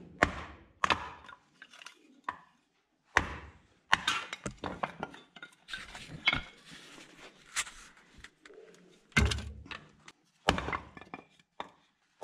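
Wooden kindling sticks knocking and clattering as they are handled and laid in a barrel stove to start a fire. An irregular series of sharp knocks and snaps, the loudest about three seconds in and about nine seconds in.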